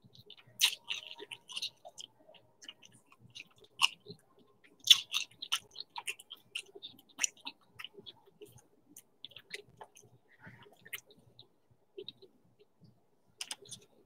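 Close-miked chewing of crunchy snack food: irregular crunches and wet mouth clicks, with the loudest bites a little under a second in and around four and five seconds in.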